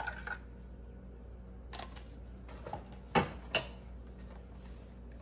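A metal spoon scraping around a ceramic bowl stops just after the start. Then comes a faint steady low hum, a faint click near two seconds in, and two sharp knocks less than half a second apart a little past three seconds in.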